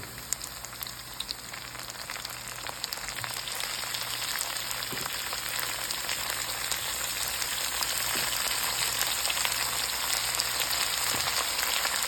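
Minced beef sizzling as it fries in hot oil, the sizzle swelling over the first few seconds as the meat goes in, then holding steady with scattered crackles.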